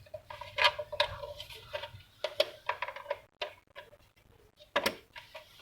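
Irregular clicks, taps and rattles of a cable and plug being handled and pushed into a TP-Link TL-WA7510N wireless unit, with a short scraping rustle near the end.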